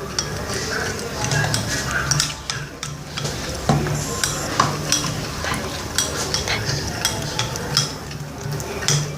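A spoon stirring a thick mix of white glue and liquid detergent in a small bowl, with irregular clicks and scrapes of the spoon against the bowl, as the slime mixture is worked until creamy.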